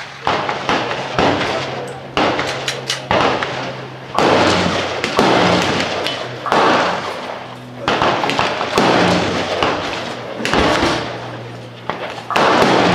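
Gunshots at an outdoor shooting range: sharp reports at uneven intervals, about one a second, each trailing off in echo.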